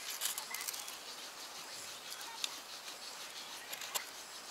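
Light wooden clicks and taps of split kindling sticks being arranged by hand over a faint outdoor hiss, a few near the start and a cluster of about three close to the end.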